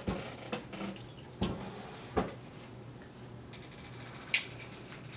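A metal spoon knocking and scraping against a small glass bowl while stirring arrowroot powder into a little water: a few light knocks, then one sharp clink near the end.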